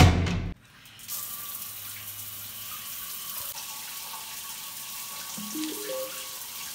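A door handle and door clunk loudly at the start, then water runs steadily from about a second in, with a few faint rising notes near the end.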